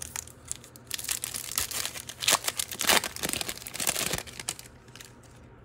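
A 2023 Topps Holiday baseball card pack being torn open, its wrapper crinkling and tearing in a dense run of crackles that dies away about four and a half seconds in.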